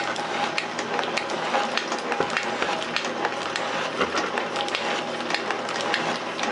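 Metal shaper running, its ram stroking back and forth as the tool takes a cutting pass across the top of a hold-down clamp blank. The machine runs steadily with frequent clicks and knocks over a constant whine.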